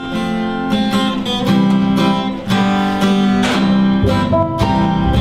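Acoustic guitar strummed in a steady rhythm while a harmonica plays a melody of held notes, the instrumental intro to a song.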